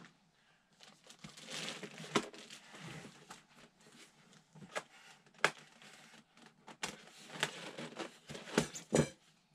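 Plastic packaging wrap crinkling and rustling as foam-packed model aircraft parts are handled, with sharp clicks and taps scattered throughout.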